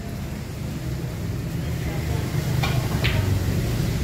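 Two sharp clicks of pool balls about half a second apart, a little past halfway: the cue tip striking the cue ball, then the cue ball hitting an object ball. A steady low rumble runs underneath.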